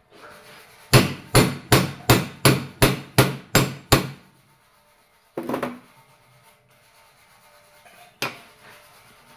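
Hammer blows on a steel tube set over a splined shaft clamped in a bench vise: nine quick metallic strikes, about three a second, each ringing briefly. A short clatter follows a second or so later, and a single knock comes near the end.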